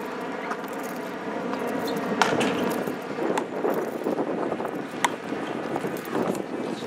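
Outdoor hubbub of distant voices and activity, with a few sharp clacks at irregular intervals.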